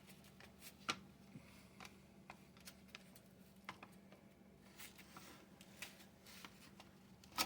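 Faint, scattered clicks and taps of a glass pane and small metal parts being worked into the tower frame of a Johnson Model D fare box, over a faint steady hum. Sharper clicks come about a second in and again near the end.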